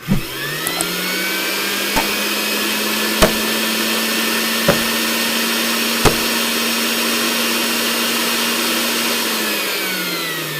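An electric power tool's motor spinning up, running steadily, then winding down near the end, with a few sharp clicks or knocks while it runs.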